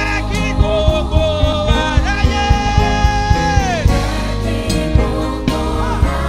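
Live gospel worship music: a singer holds long, bending notes over a band with drum kit and bass, one note held for nearly two seconds before it falls away.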